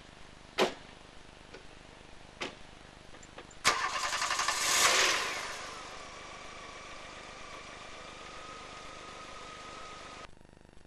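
Two car doors slam shut, then the car's engine is cranked and catches, swells briefly and settles to a steady idle with a faint whine. The sound cuts off suddenly near the end.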